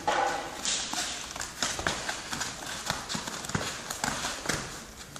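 Muay Thai sparring: irregular thuds and slaps of gloved punches, kicks and bare feet on the mat, the sharpest one right at the start. The fighters grapple into a clinch near the end.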